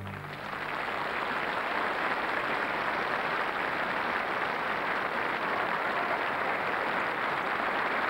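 Large studio audience applauding steadily. The last chord of the music dies away right at the start.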